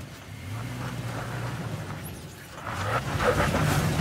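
Toyota Tacoma pickup's engine running at low crawling revs over boulders, then revving harder about three seconds in as a tyre spins and scrabbles on rock and loose dirt.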